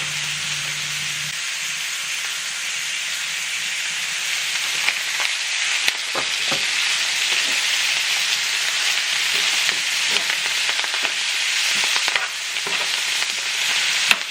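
Salmon frying in a pan, a steady sizzle with scattered small clicks and pops from about five seconds in.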